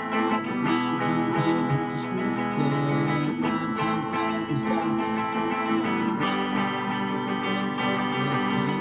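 Guitar playing an instrumental passage of a rock song, steady chords with no vocals.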